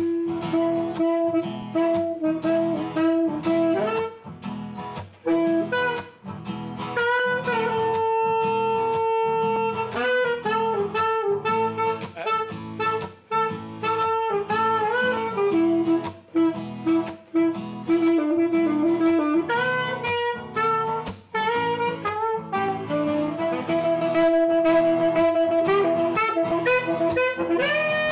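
Saxophone and acoustic guitar playing jazz together. The saxophone carries a melody of long held notes over steady strummed guitar chords.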